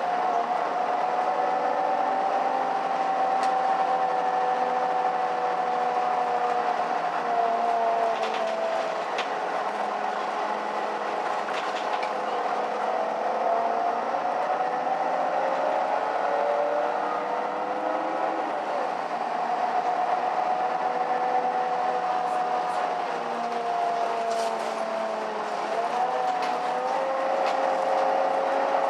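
Mercedes-Benz O530 Citaro city bus heard from inside while driving: its engine and drivetrain give a steady whine that slowly rises and falls in pitch with the bus's speed, with a few light clicks.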